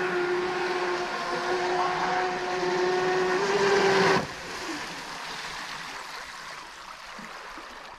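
RC jet boat's 350 kV brushless motor and water-jet pump running hard on 12S: a steady high whine over rushing spray, its pitch edging up slightly before it cuts off suddenly about four seconds in as the throttle comes off. After that only fainter water noise remains as the boat coasts.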